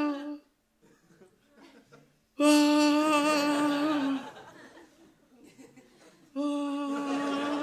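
A man's voice holding a long, steady-pitched "aaah" cry, about two seconds at a time and repeated with pauses, each ending in a slight drop: a comic imitation of a falling man's scream played over again like a replay. Faint audience laughter fills the gaps.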